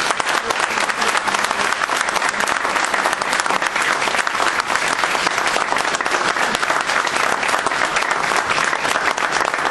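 A roomful of people applauding: many hands clapping steadily and densely, welcoming a newly elected chairman.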